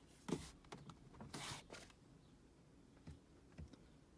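Faint handling noises: two short rustling scrapes, one near the start and one about a second and a half in, and a few light clicks.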